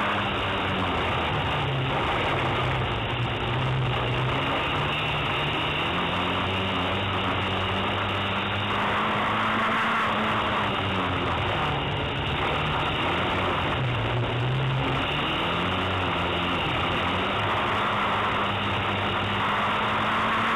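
Autocross car's engine heard from inside the cockpit while racing on a dirt track. The engine rises and falls in pitch again and again as the driver accelerates, lifts and changes gear, over a constant rush of noise.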